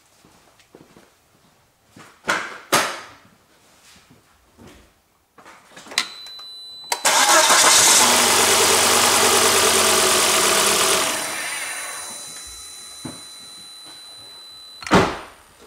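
Volvo 2.4-litre five-cylinder petrol engine cranked over by its starter motor for about four seconds to take a compression reading, with a compression gauge screwed into one spark-plug hole. A few clicks and thumps come first, a steady high tone sounds alongside, and a sharp thump comes near the end.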